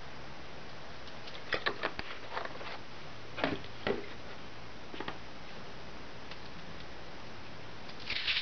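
A few light clicks and two louder knocks of things being handled on a bench. Near the end, a wet sponge starts wiping over the vinegar-wet aluminium foil plate with a short scratchy rustle.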